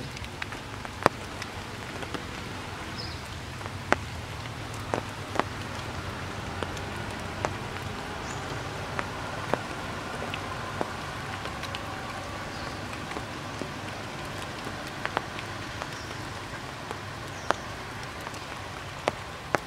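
Steady rain falling through tree foliage, a constant hiss broken by irregular sharp ticks of single drops landing close by.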